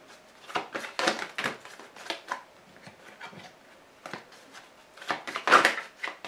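A deck of Lenormand playing cards being shuffled by hand: flurries of quick card flicks and slides, quieter through the middle, with the loudest flurry about five and a half seconds in.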